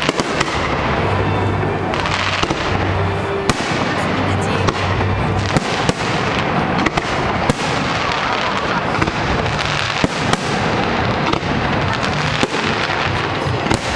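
Aerial fireworks display: many sharp bangs scattered through, over a continuous dense crackle.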